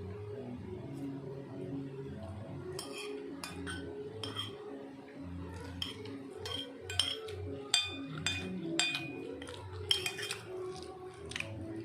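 Metal eating utensils clinking and scraping against a dish while instant noodles are being eaten: a string of sharp, irregular clinks, thickest in the middle and latter part.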